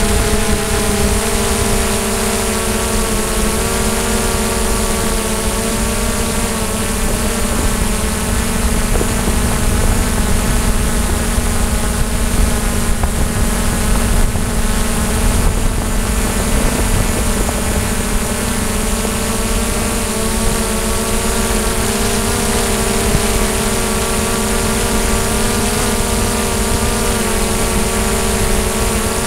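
DJI Mavic quadcopter's electric motors and propellers whining steadily in flight, the pitch wavering slightly as the motor speeds change, with a low wind rumble underneath.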